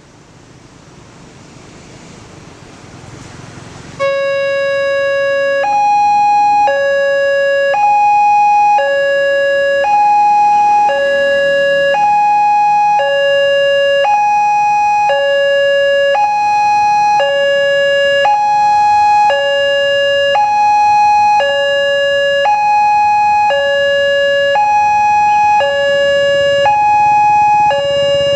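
Railway level crossing warning alarm starting suddenly about four seconds in: an electronic two-tone signal alternating steadily between a lower and a higher note about once a second, warning of an approaching train. Before it, a rising rushing noise.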